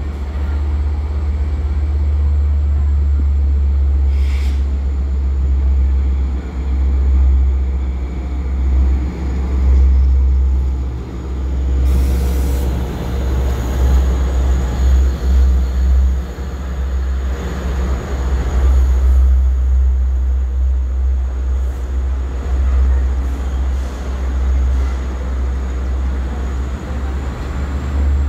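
Long Island Rail Road train, a DM30AC dual-mode locomotive hauling bilevel coaches, running past on the tracks with a steady low rumble. A brief sharp noise comes about twelve seconds in.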